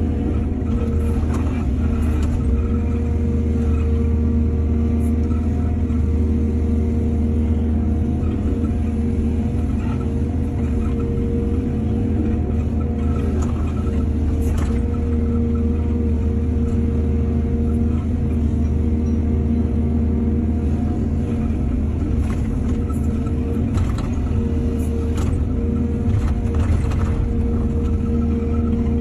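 Excavator's diesel engine running steadily at a constant pitch, with occasional sharp knocks and clanks.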